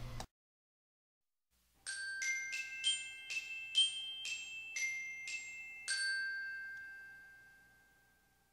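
Short glockenspiel jingle: about ten quick, bright struck notes, the last one held and ringing out as it slowly fades away.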